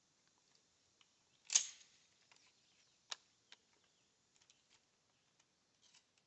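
Small metallic clicks from handling a Stevens 320 pump-action shotgun: one sharp click about a second and a half in, another around three seconds, with faint ticks between.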